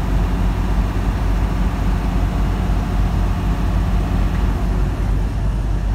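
Semi-truck cab interior at highway speed: a steady low engine drone under road and wind noise.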